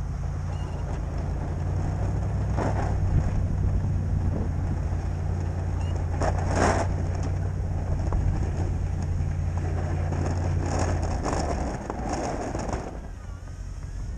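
Ford F-250 pickup's engine running steadily while it pushes snow with a V-plow, with several short rushes of noise along the way. The engine note eases off about eleven seconds in, as the blade drives the snow up into a pile.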